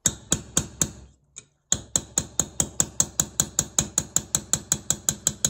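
Small hammer tapping metal on metal, driving a 5.5 mm Allen key into a corroded, seized cylinder screw on a Stihl 090 G chainsaw to seat the key and shock the screw loose. A few strikes come first, then a short pause about a second in, then a fast, even run of about five taps a second.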